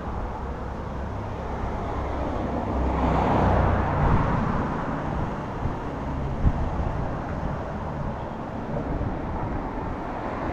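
Street traffic going by, with a car passing close and loudest about three seconds in.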